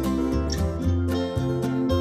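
Country music with strummed acoustic guitar, bass and a steady beat of about two strokes a second.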